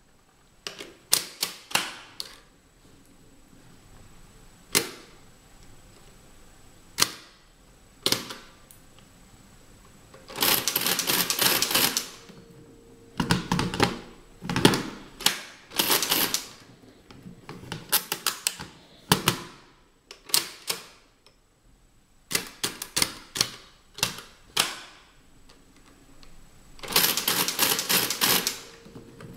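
TIM-Unitas stepped drum mechanical calculator worked by hand: sharp single clicks as keys are set and the carriage is shifted, with dense runs of rapid clattering, about two seconds long, as the crank is turned again and again to multiply by repeated addition.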